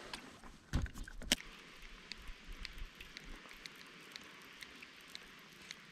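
A few sharp knocks and bumps of gear on a plastic fishing kayak in the first second and a half, followed by faint short ticks, about two a second.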